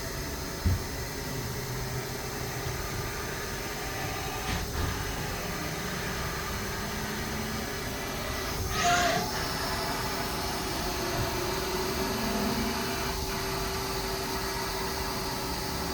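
Steady machine hum with a held tone, a few light knocks, and a short hiss about nine seconds in.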